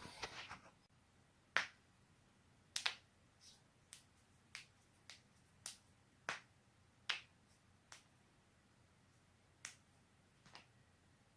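Human joints cracking: about a dozen sharp, separate pops at irregular intervals of half a second to two seconds, the loudest about one and a half and three seconds in.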